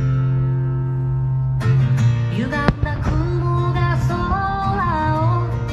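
Music: a held chord, then guitar and a singing voice coming in about halfway.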